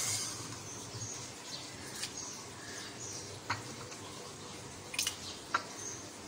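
A handful of light clicks and taps from handling a glass blender jar as ingredients go in, with faint short bird chirps in the background.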